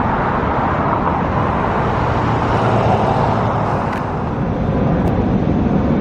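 Steady road traffic noise: vehicles and engines running.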